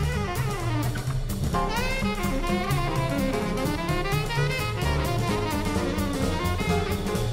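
Background jazz with drum kit and a saxophone-like lead melody, playing at a steady level.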